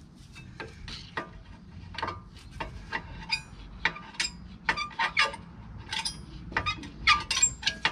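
A metal hand tool clicking and scraping against a van's rear brake disc and hub in a quick, irregular string of short metallic clinks, some with a brief ring.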